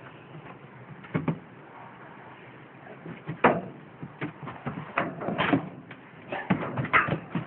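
A dog barking in short, irregular barks, starting about three and a half seconds in and coming faster near the end. A couple of sharp knocks come about a second in.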